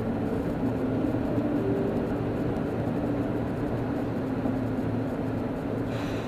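Steady road noise inside a car's cabin at freeway speed: tyres on the pavement and a low, even engine hum.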